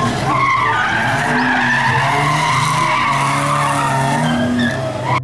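Cars drifting on asphalt: tyres squealing over the steady sound of hard-running engines.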